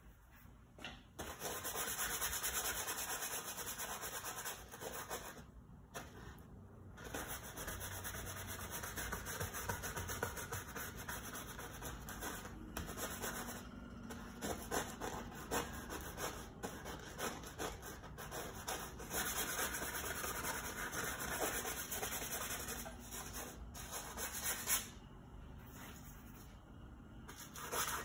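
Paintbrush scrubbing oil paint onto a stretched canvas in stretches of rubbing strokes, broken by a few short pauses.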